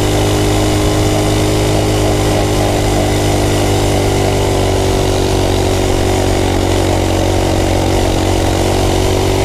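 Coleman mini bike's small single-cylinder engine running hard at a steady high speed under way, with wind and road noise over it.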